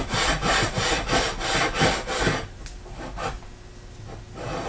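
A milled steel 3/4 inch key-stock bar slid back and forth in the slot of a SWAG band saw table, metal scraping on metal in quick strokes about three a second. The strokes fade after a couple of seconds, with a few fainter ones near the end. The bar is a snug sliding fit in the slot.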